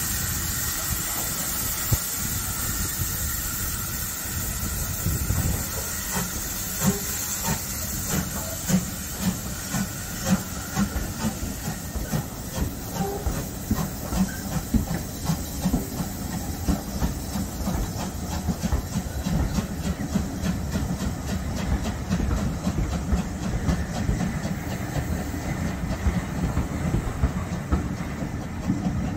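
Ivatt Class 2MT tank engine No 41241 pulling away, steam hissing loudly from the locomotive for the first few seconds. The hiss then fades and the coaches roll past with wheels clicking and knocking over the rail joints.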